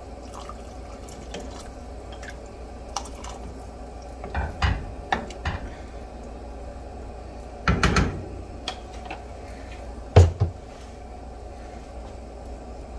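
Water poured into a pot of stew and a wooden spoon stirring it, knocking against the pot several times, with the loudest knock about ten seconds in.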